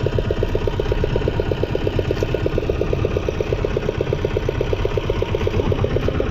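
Small engine mounted on a fishing boat's stern, running steadily with a fast, even beat of about a dozen pulses a second.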